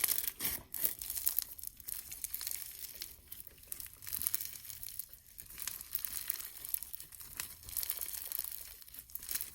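Crunchy slime being squeezed and kneaded by hand, giving a continuous crunch of many small crackles and pops.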